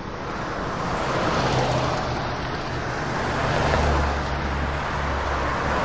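Vehicle noise: an even rumble that swells and eases, with a low hum coming in about a second and a half in.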